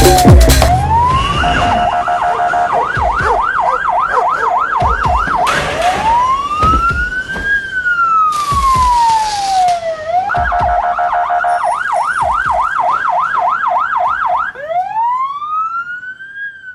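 Electronic emergency-vehicle siren cycling between a slow wail that rises and falls over a couple of seconds and a fast yelp of about four sweeps a second, with short steady tones between the patterns. It fades out near the end.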